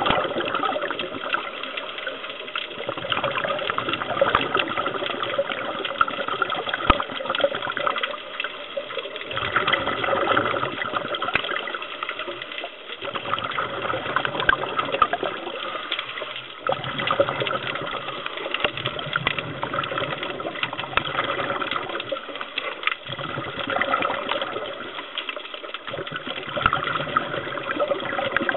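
Scuba regulator breathing and exhaled bubbles heard underwater: a rushing, bubbling noise that swells and fades every few seconds with each breath.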